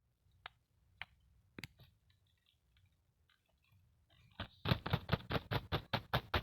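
Hands handling a plastic toy doctor playset for ASMR. A few sharp clicks come first, then about two-thirds of the way in a fast, even run of taps starts at about five a second.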